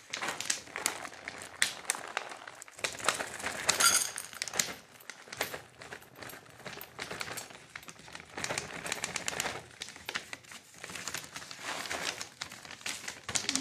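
Foil cat-food bag crinkling while dry kibble is poured and scooped into stainless-steel bowls. The pieces make a dense rattle of small clicks against the metal, heaviest in two spells.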